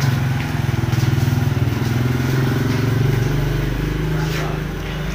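Honda Beat single-cylinder automatic scooter engine idling steadily. A deeper low hum joins about three seconds in.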